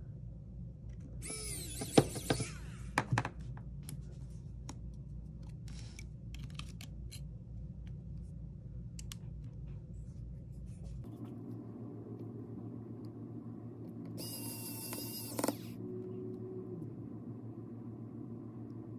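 Small clicks and taps of a precision screwdriver and tiny metal parts while screws are driven into an iPhone 6's connector cover bracket, with one sharp click about two seconds in. There are two brief high-pitched scrapes, near the start and about three-quarters through, over a steady low hum.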